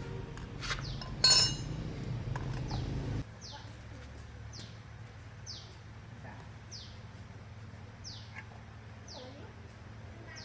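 A bird repeating a short falling chirp about once a second. A low machine hum runs under it and stops suddenly about three seconds in, and one sharp metallic clank sounds about a second in.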